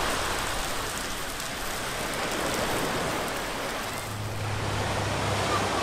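Bone-in rib steak sizzling on the grate of a Pit Boss portable charcoal grill, a steady crackling hiss. A low steady hum comes in about four seconds in.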